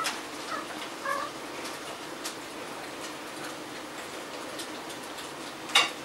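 Two female cats in heat wrestling: a couple of short, high chirps in the first second, faint scuffling and clicks, and one sharp click near the end.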